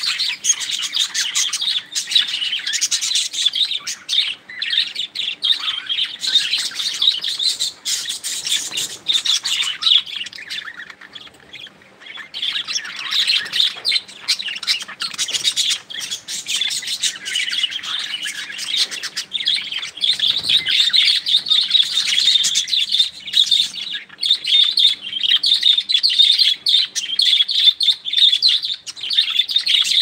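A flock of budgerigars chirping continuously, many birds calling over one another, dipping briefly about a third of the way through.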